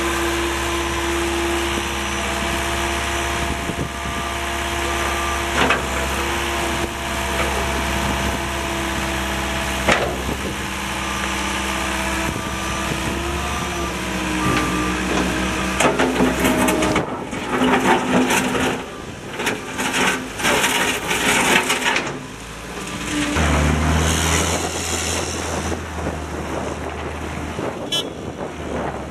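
John Deere 319D tracked skid steer's diesel engine running steadily, with a few sharp knocks. About halfway through the engine note shifts and there are several seconds of irregular clatter, after which the engine note goes deeper and louder, as if under load.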